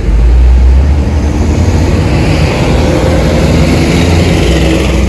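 Vehicle running on the road, heard from inside: a steady low engine drone and road rumble, loud, with some traffic noise from outside.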